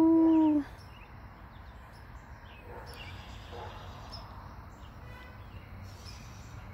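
Faint outdoor ambience: a steady low background hum with scattered short, high chirps from small creatures nearby.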